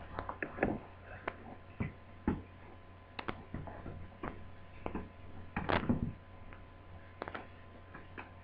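Irregular light clicks and taps of hands handling laptop parts and the DC jack cable, over a steady low hum.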